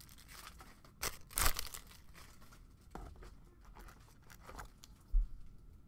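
Trading cards and their plastic wrapping being handled by hand: a few short crinkles and rustles, the loudest about a second and a half in, and a dull low bump near the end.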